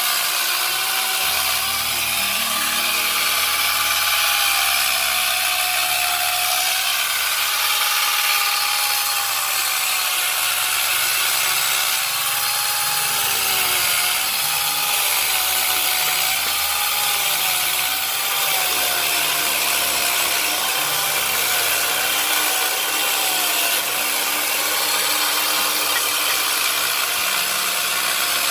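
A power tool grinding or cutting into wood without a break, its motor whine wavering and dipping as it bites under load, then picking up again.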